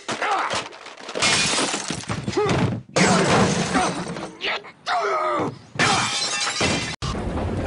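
Loud crashing and shattering noise in several surges, mixed with a yelling, voice-like sound that rises and falls in pitch.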